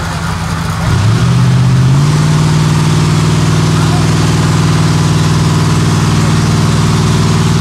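Off-road truck engine revving up about a second in, stepping up again near two seconds, then held at a steady raised speed.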